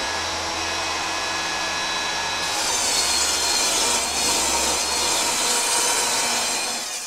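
Table saw running and ripping a wide panel of sheet goods along its length. From about two and a half seconds in, the blade bites into the board and the sound gets louder and hissier as the cut goes on.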